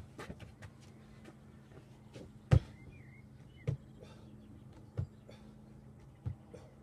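Dull thumps of a man's hands, body and feet landing on wooden deck boards during burpees, coming about every second and a quarter; the loudest is about two and a half seconds in.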